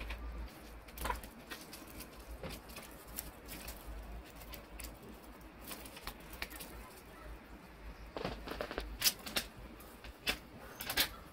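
Origami paper being handled and pressed into shape, making light rustling and crinkling with scattered small crackles. The crackles come more densely and louder in the last few seconds.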